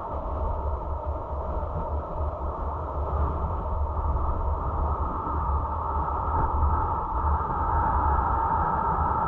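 Wind and road noise of a car driving, picked up by a dashcam inside the cabin: a steady low rumble and rush that grows a little louder in the second half.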